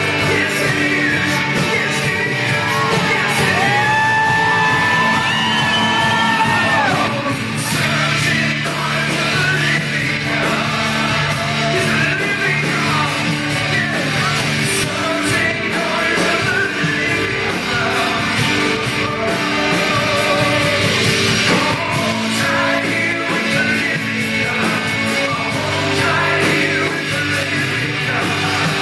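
Live worship music: a band plays steadily while a singer sings and calls out over it, holding long, wavering notes a few seconds in.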